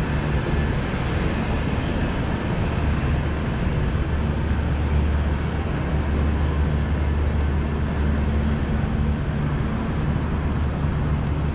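Steady city street ambience dominated by a low mechanical hum under an even rushing noise, with the hum swelling for a few seconds mid-way.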